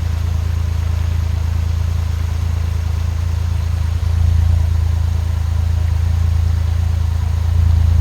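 Fast-running creek water after heavy flow: a steady, loud low rumble with a faint hiss above it.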